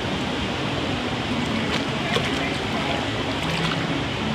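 Fast-flowing water-park river current rushing and churning around a floating person, a steady wash of water noise with a few small splashes around the middle.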